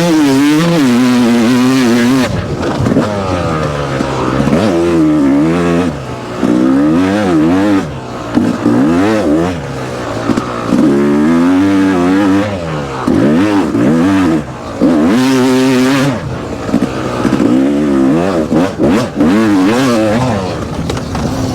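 Yamaha YZF four-stroke single-cylinder dirt bike engine being ridden hard, its pitch climbing and falling again and again as the throttle is opened and shut through the gears. The engine note drops briefly several times when the throttle closes.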